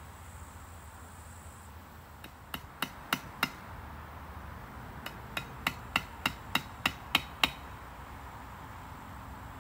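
Hammer striking to set eyelet rivets in a waterproof cover sheet. A quick run of about four strikes comes first, then a pause, then about nine strikes at roughly three a second, getting louder.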